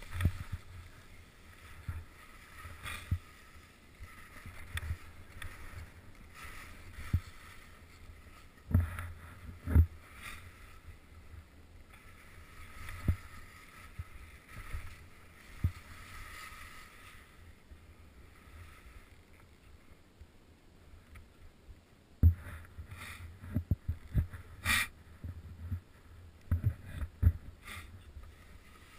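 Skis hissing and swishing through deep powder snow, with sharp knocks and thumps from pole plants and skis bumping, the knocks coming thickest in a burst near the end.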